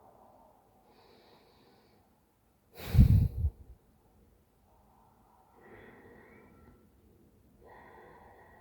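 A woman snoring in her sleep after a few drinks: one loud, rough snort about three seconds in, between much quieter breaths.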